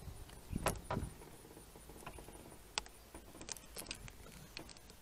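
Scattered light clicks and knocks over a low rumble: handling noise from a handheld camera being moved and turned.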